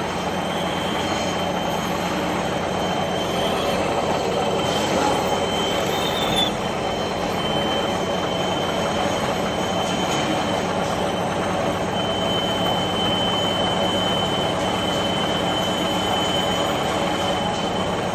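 Metal lathe cutting a washer: steady machining noise with a thin, high squeal of the cutting tool against the metal, stronger in the second half.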